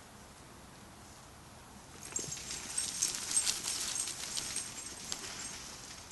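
Hooves of a small group of deer clattering and scuffing on gravel and dry ground as they bolt, a rapid irregular patter that starts about two seconds in and fades near the end.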